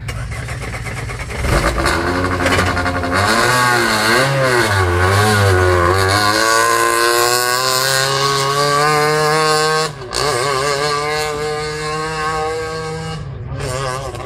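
Peugeot 207 rally car engine revved in quick blips, then pulling hard through the gears as the car drives off. There is a sharp gear change about ten seconds in, after which the revs climb again and the sound fades near the end.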